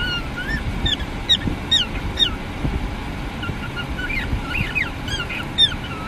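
Cockatiel chirping: a run of short whistled notes, some rising and some falling, several a second, over a low steady rumble.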